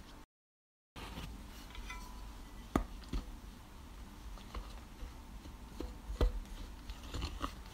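Light, scattered clicks and taps of a glass jug being handled over a glass bowl, against faint room tone. The sound drops out to dead silence for a moment just after the start, and the sharpest tap comes about six seconds in.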